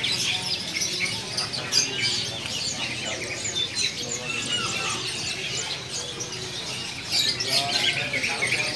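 Many caged birds chirping and squeaking at once, a dense chatter of short high calls that thickens near the end.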